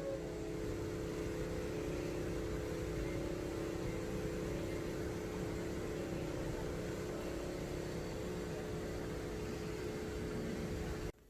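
Steady mechanical hum with a low rumble, holding a few constant tones, that cuts off abruptly near the end.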